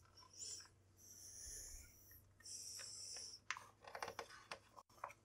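Faint soft swishes of a hand sliding over the glossy paper pages of a model-kit instruction manual, then a page being turned with a few crisp paper rustles from about three and a half seconds in.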